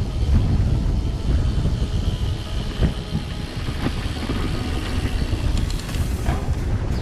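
Wind buffeting a bike-mounted action camera, with the mountain bike's tyres rumbling over the lane and stone paving. A few short rattles come near the end as the bike crosses the flagstones.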